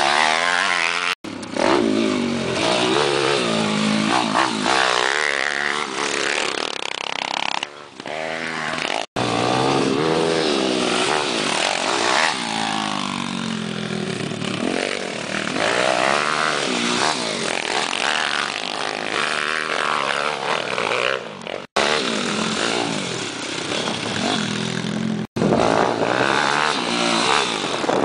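Pit bike engines revving up and down as the bikes ride the dirt track, the pitch rising and falling with the throttle. The sound cuts out sharply four times for an instant.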